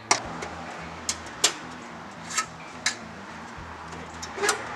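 Small steel parts of a vintage Tonka toy truck being handled during disassembly: about six sharp clicks and knocks at uneven intervals.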